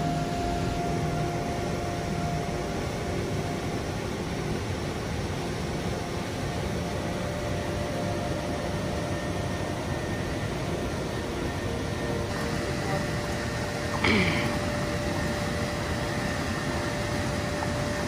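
Steady rushing roar of a waterfall pouring into a pool. About fourteen seconds in, one brief, louder sudden sound breaks through it.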